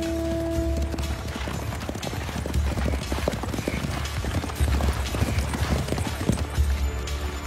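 A horse's hooves galloping on dry dirt, a dense run of hoofbeats starting about a second in, over low background film music whose held note fades out as the hoofbeats begin.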